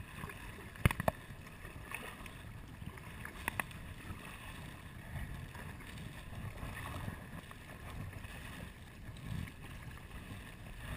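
Kayak paddle strokes: water swishing and dripping off the blades as they dip and lift, with a few sharp knocks about a second in and again a few seconds later.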